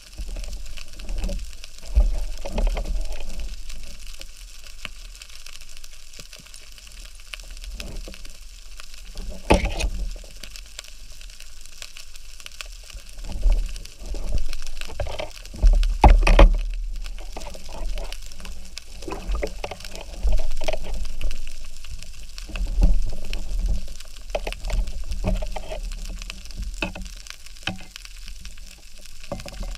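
Underwater ambience heard through a speargun-mounted camera: water swishing and a low rumble, with irregular crackling and a few louder knocks, the loudest about 16 seconds in.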